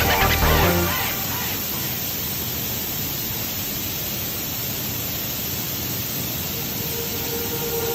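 Music fades out within the first second, then a steady, even hiss of noise with no tone or rhythm.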